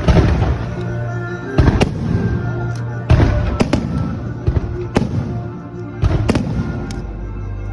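Fireworks show: sharp bangs of bursting fireworks, about one to two a second with some in quick pairs, over music playing.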